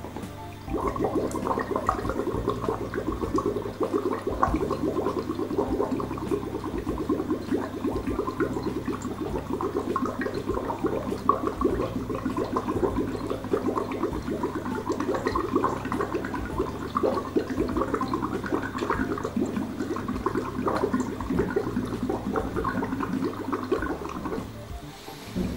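Breath blown through a tube into a glass of water, bubbling rapidly and steadily. It starts about a second in and stops near the end.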